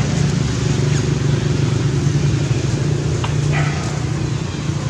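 A loud, steady low motor hum, like an engine running nearby. A short voice-like cry cuts in about three and a half seconds in.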